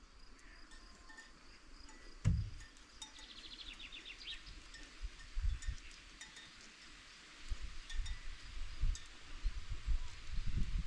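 Faint outdoor village ambience: a bird's rapid high trill a few seconds in, scattered light chime-like clinks, a single knock about two seconds in, and low rumbling on the microphone in the second half.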